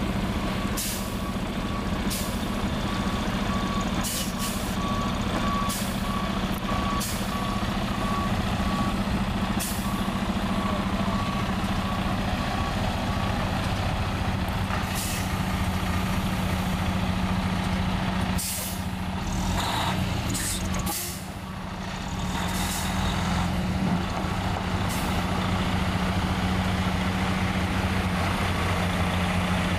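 Diesel engine of a snowplow salt-spreader truck running as it manoeuvres, its backup alarm beeping steadily for the first dozen seconds. Short air hisses break in several times, and after a brief lull around two-thirds of the way through the engine note deepens and rises as the truck pulls forward.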